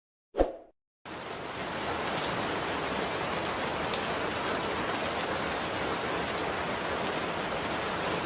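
A short low thud, then, about a second in, a steady even hiss like falling rain with faint scattered ticks, starting abruptly.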